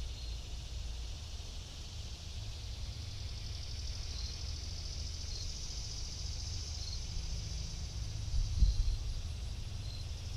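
Wind buffeting an action camera's microphone as a steady low rumble, with a stronger gust about eight and a half seconds in. Under it runs a steady high insect buzz, with a few short, faint high chirps.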